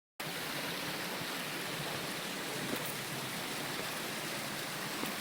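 Steady rush of running water from a moorland stream, an even hiss with no pauses.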